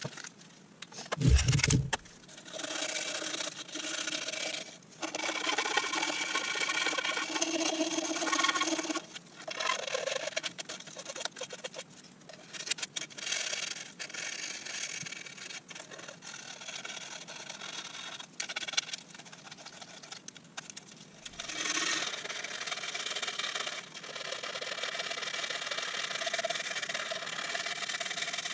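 Hand-sanding the carved eyelet of a beech bowl with a small strip of sandpaper: long spells of scratchy rubbing with short pauses between. A single loud thump comes about a second and a half in.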